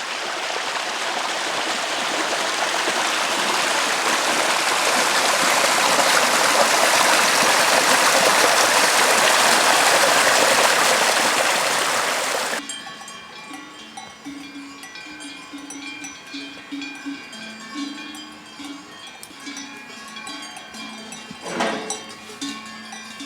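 Many livestock bells jingling together, as from a flock on the move, growing steadily louder and then cut off abruptly about halfway through. A quieter low tone follows, stepping between a few pitches, with a couple of sharp knocks near the end.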